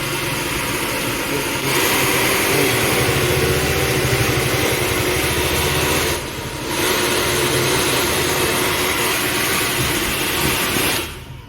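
Panasonic 3500-watt professional hair dryer running: a steady rushing blow over a motor hum. It gets louder about two seconds in, dips briefly past the middle, and is switched off near the end.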